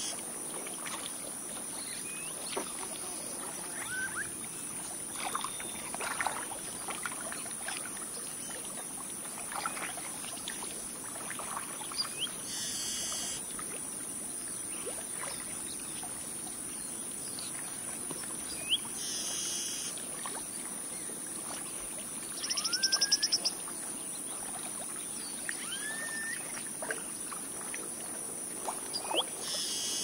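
Bird ambience: scattered chirps and short rising whistles over a steady high-pitched insect drone, with a rapid loud trill about two-thirds of the way through.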